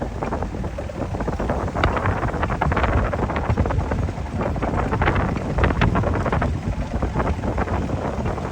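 Wind buffeting the microphone over irregular splashing and slapping of water against a small fiberglass fishing boat.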